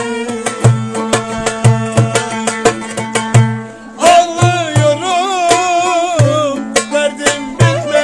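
Turkish folk dance music. Hand-played goblet drums (darbukas) beat a steady rhythm, with deep strokes about twice a second and sharp slaps between, over held accompaniment notes. About halfway the music drops briefly, then a melody with a wide, wavering vibrato comes in.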